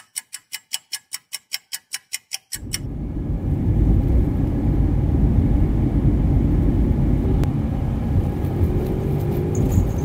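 A clock-ticking sound effect, fast and even, stops about two and a half seconds in. The low, steady engine and road rumble of a moving car, heard from inside the cabin, follows.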